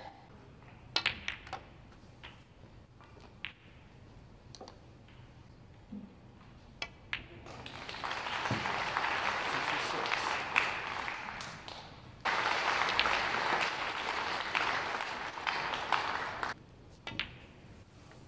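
A few sharp clicks of snooker balls being struck, then an audience applauding for about eight seconds, jumping abruptly louder partway through before stopping.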